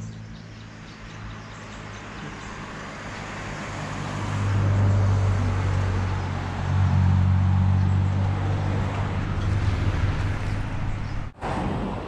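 A motor vehicle's engine running, a steady low hum with road noise, growing louder about four seconds in and staying loud, then cut off suddenly near the end.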